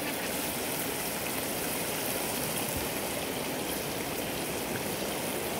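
Fish pieces frying in hot oil in a small pan over a wood fire: a steady sizzle with fine crackling.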